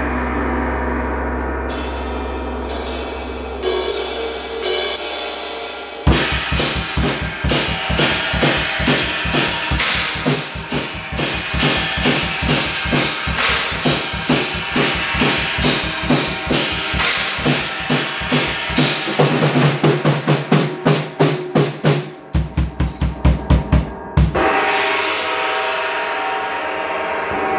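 A gong rings on with a low, steady hum and a few light metallic taps over it; about six seconds in a drum kit comes in, played fast on drums and cymbals for some eighteen seconds. It ends on a hard hit near the end, leaving the gong and cymbals ringing.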